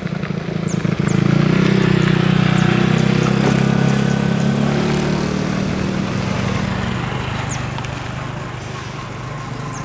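A motor engine running close by, swelling about a second in and fading away after about seven seconds, with a few bird chirps above it.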